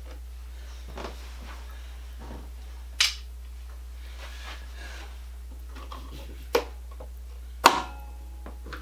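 Screwdriver working paint out of the slots of painted-over switch screws: faint scraping broken by a few sharp metal clicks, the loudest near the end with a short ring, over a steady low hum.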